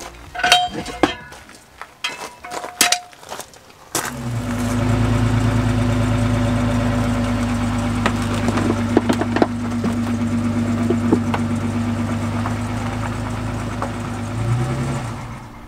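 A few sharp clicks and two short beeps, then a Toyota Sienna minivan's engine starts about four seconds in and runs steadily, heard close to the exhaust. Near the end it rises briefly as the van is driven back off the ramps, then falls away.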